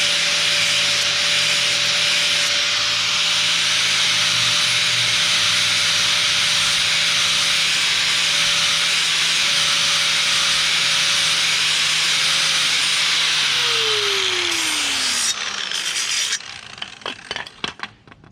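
Power grinder running steadily against the steel mower blade, taking off the burr that sharpening rolled onto the back side of the edge. About 13 s in the motor is switched off and winds down with a falling whine, then a few metal clinks as the blade is handled.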